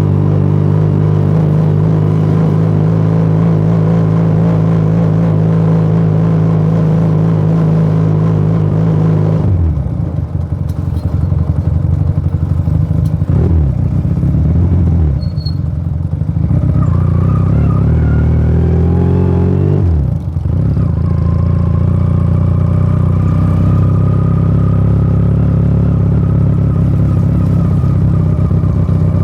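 Motomel Rider 250's single-cylinder four-stroke engine and exhaust heard while riding. It holds a steady speed at first. From about ten seconds in the engine note drops and rises several times as the bike slows and pulls away again, with a brief dip like a gear change near two-thirds of the way through. It then settles back to a steady cruise.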